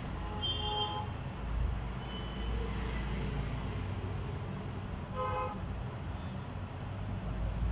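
Vehicle horns toot briefly, once just under a second in and again about five seconds in, over a steady low hum of background traffic.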